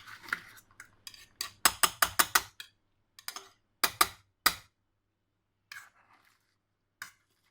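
A potato masher knocking against a bowl as it pounds the salad ingredients, used in place of a mortar and pestle. A quick run of sharp knocks comes about two seconds in, then a few single knocks with pauses between.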